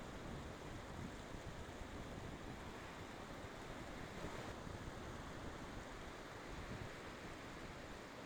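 Sea surf: a steady rush of breaking waves, with a low wind rumble on the microphone.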